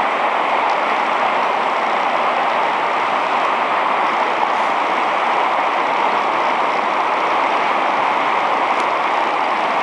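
River water rushing steadily over a shallow rocky riffle.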